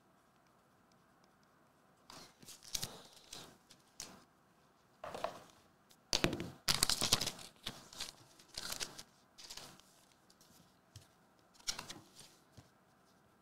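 Paper rustling and scratching in a run of irregular, short strokes, starting about two seconds in and loudest around the middle.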